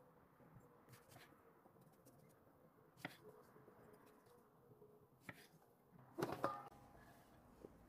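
A few faint, spaced knife taps on a wooden cutting board while slicing tomatoes, then about six seconds in a louder brief clatter as tomato slices are slid off the wooden board into a stainless steel bowl.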